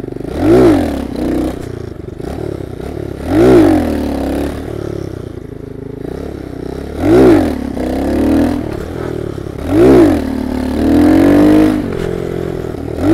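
Monkey bike's small engine under way, revved up and back down sharply about every three seconds, each time rising and falling in pitch. A longer, held pull comes near the end.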